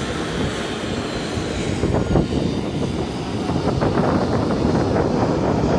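Jet airliner engines running at taxi power, heard across the apron as a steady rumbling roar, briefly louder about two seconds in.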